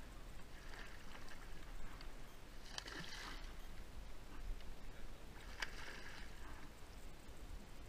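Hooked salmon thrashing at the surface, splashing twice: briefly about three seconds in and again near six seconds, over faint lapping river water.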